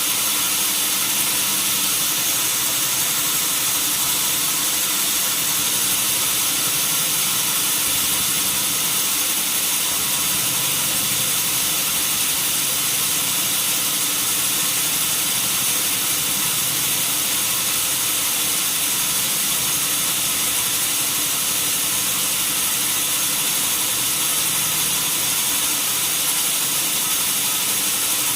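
Sawmill machinery running steadily: an even, loud mechanical noise with a strong high hiss and a few steady hums, unbroken throughout.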